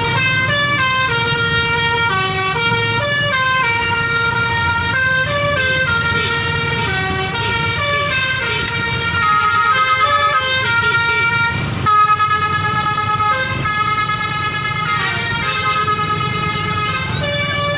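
Bus telolet horn, a multi-tone basuri air horn, playing a continuous melody of stepped notes, with the bus engine running underneath. There is a short knock about twelve seconds in.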